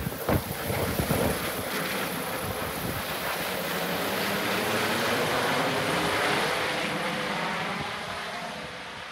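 Airbus H145 helicopter flying away overhead, a steady rotor and turbine noise that fades near the end as it climbs off. Wind gusts buffet the microphone in the first couple of seconds.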